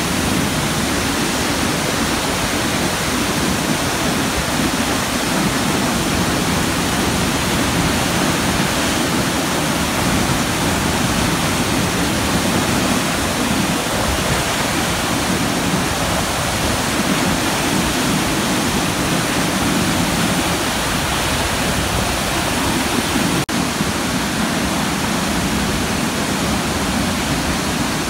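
Haew Narok waterfall, a large multi-tiered waterfall, pouring as a loud, steady rush of falling water, with one very brief dip near the end.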